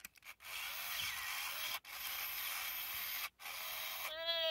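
Original Tiger Electronics Furby coming to life: its motor and gearbox whir in three stretches with short breaks, then near the end it gives a high-pitched call that slides down in pitch.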